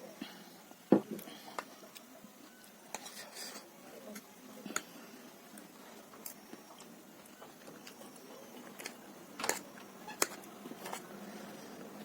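Eating utensils clinking and tapping against a bowl in scattered sharp knocks, the loudest about a second in and a few more close together near the end.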